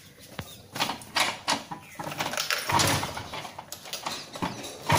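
Knocks and rattles of a TVS XL moped being started, then its single-cylinder engine firing up right at the end.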